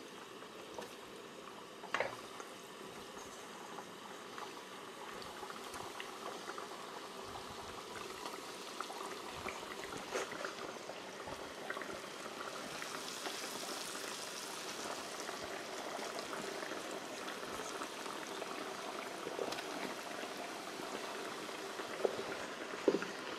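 Batter-coated potato sticks sizzling as they deep-fry in hot oil in a frying pan, the sizzle growing louder as more pieces go in. A few light knocks of the wooden utensil against the pan and bowl.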